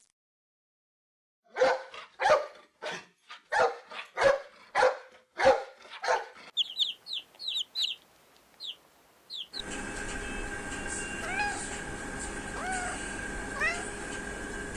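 A string of about eight short, loud animal calls, about two a second. Then a quick run of high chirps, and finally a steady hiss with a few faint rising and falling whistles.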